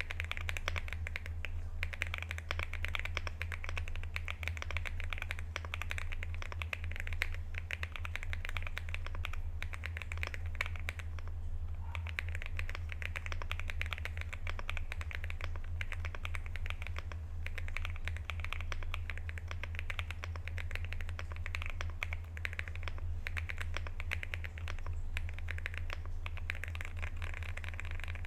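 Fully modded Aula F75 mechanical keyboard with new keycaps being typed on quickly and continuously: a dense run of key clacks, with a short pause near the middle, over a steady low hum.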